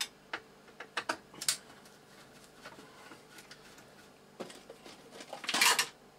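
Scattered small clicks and taps of a screwdriver and hands working screws in the computer's plastic case and metal drive chassis, with a short louder scraping clatter about five and a half seconds in.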